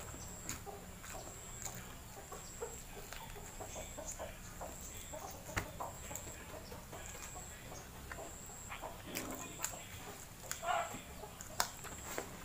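Close-up eating sounds: chewing and lip smacks while eating rice and fried chicken by hand, with small wet clicks. Clucking is heard in the background, loudest near the end, over a faint steady high whine.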